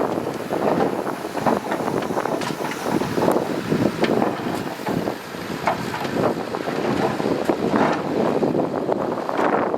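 Bulldozer working, its engine running with a steady rumble and many short clanks and rattles, and wind buffeting the microphone.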